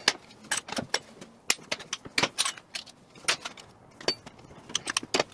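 Small metal parts clicking and clinking as they are handled around a Harley-Davidson V-twin's pushrod tubes. There are many sharp ticks at irregular intervals.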